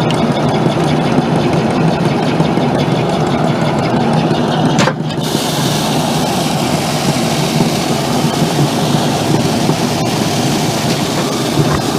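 Engine-driven grain-handling machinery running steadily, with a brief drop in sound about five seconds in, after which a stronger hiss joins the machine noise.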